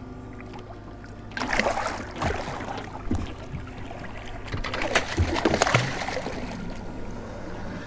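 Hooked shark thrashing at the surface beside a small boat's hull, sending up irregular splashes that start about a second and a half in and come in bursts through the middle.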